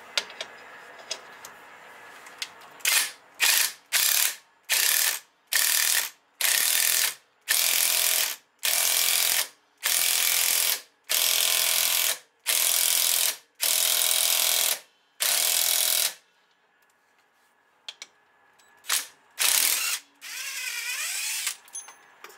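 Socket ratchet wrench clicking in about a dozen repeated strokes, the strokes growing longer, as it tightens a nut over stacked washers to draw a new wheel stud into the rear hub. A few short metal knocks follow near the end.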